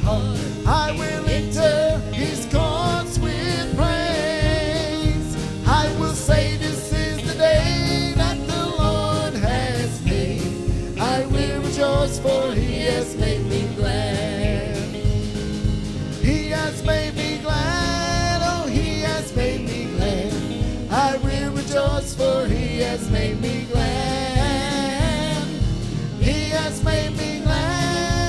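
Live gospel worship music: several singers on microphones with a full band and a steady drum beat.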